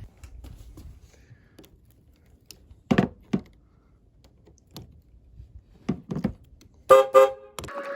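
A few sharp metallic clicks as the battery terminal is refitted, then near the end two short, loud car horn toots, set off as the car's power comes back on.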